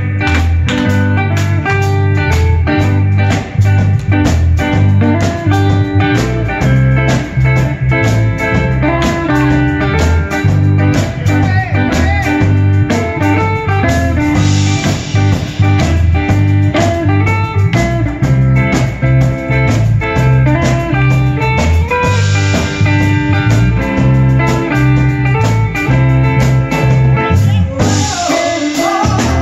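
Live gospel band playing an instrumental groove: electric guitar over bass and drum kit. A singer's voice comes in near the end.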